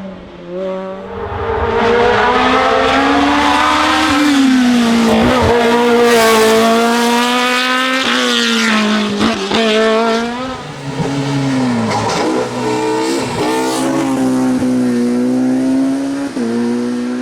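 Race car engine at full throttle on a hill climb, its pitch climbing and then dropping sharply several times as it shifts through the gears, with sharp cracks at a couple of the shifts. It is loudest in the first half, then the revs fall and rise again at lower volume as the car brakes and pulls away from the next bend.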